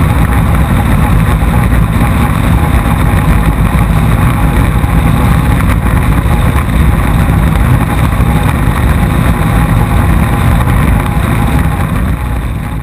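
Powerboat engine running steadily at speed, heard from on board as a loud, continuous low-heavy drone, beginning to fade out near the end.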